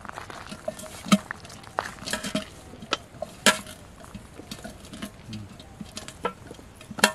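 Hands mixing fishing bait in a metal bowl: irregular soft pats and squishes with sharp clinks against the bowl, the loudest about a second in, around three and a half seconds, and near the end.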